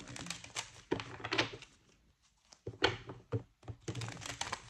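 Tarot cards being shuffled and handled by hand: a string of short card slaps and taps, with a brief pause in the middle.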